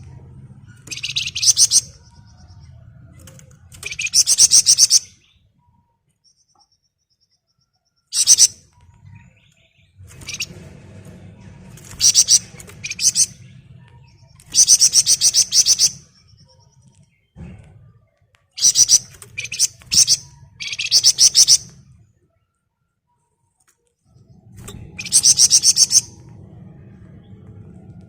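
Javan fulvetta (wergan jawa) singing in bursts of rapid, tightly packed high trills, each about a second long, with short pauses between. This is the dense 'ngebren' trill that keepers prize.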